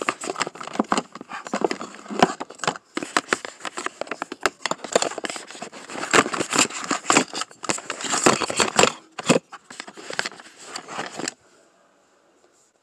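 Makeup items being rummaged through in a cosmetics case: plastic tubes and containers clattering and rustling in a dense run of small knocks, stopping abruptly about eleven seconds in.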